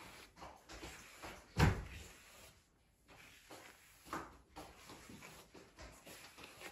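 Soft, irregular brushing and rustling of a plastic comb and hands working through long hair, with a dull thump about one and a half seconds in.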